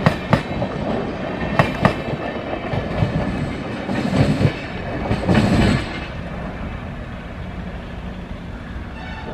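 A passenger train's wheels clacking over rail joints in pairs of sharp clicks, one axle after the other, over a steady rolling rumble. The sound drops to a quieter, even rumble about six seconds in.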